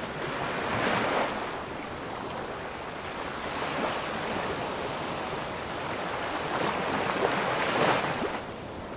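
Small waves washing up a sandy beach and draining back, swelling about a second in and again near the end.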